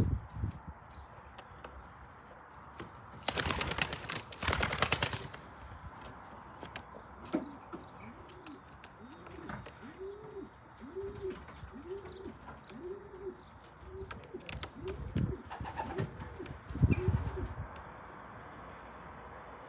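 Racing pigeon cooing: a steady run of about a dozen low coos, each rising and falling over about half a second. Before the cooing, a loud flurry of pigeon wing flapping comes a few seconds in, and a shorter one comes near the end.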